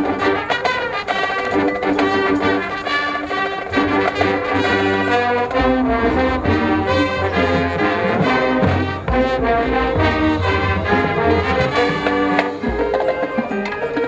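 High school marching band playing its field show, brass to the fore. Deep bass notes come in about halfway through and hold for several seconds.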